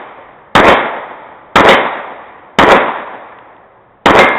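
Four pistol shots fired at a steady pace of about one a second, each trailing off in a long fading echo.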